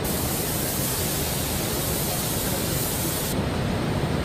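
Steady rushing noise from a car-body cleaning booth with rotating ostrich-feather rollers. A higher hiss runs over it for about the first three seconds and cuts off abruptly.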